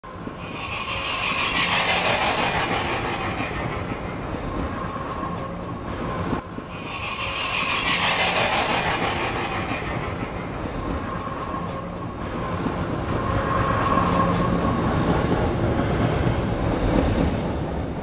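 Train running on the rails, its noise swelling and easing three times, with a faint steady whine and a sharp click about six seconds in.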